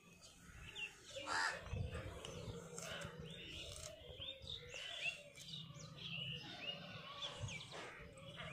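Small birds chirping, many short high calls one after another, over a low steady hum.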